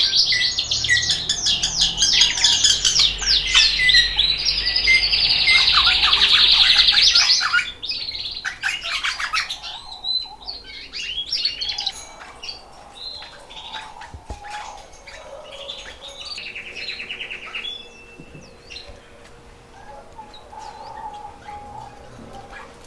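Domestic canaries singing. A long, loud, rapid trilling song fills the first seven or so seconds, then gives way to quieter scattered chirps and a shorter trill later. Such singing is the sign of birds coming into breeding condition.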